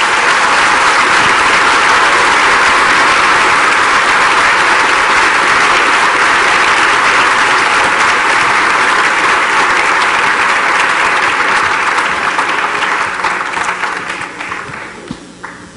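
Audience applauding, steady for most of its length, then dying away near the end.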